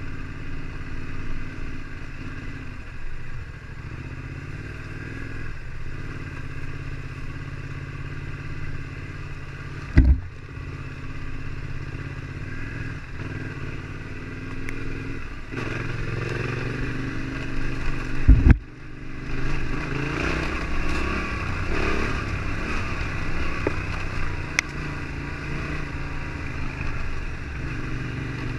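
Yamaha Ténéré 700 parallel-twin motorcycle engine running under way, its note rising and falling with the throttle. There are two loud thumps, one about ten seconds in and one about two-thirds of the way through, after which the engine pulls harder.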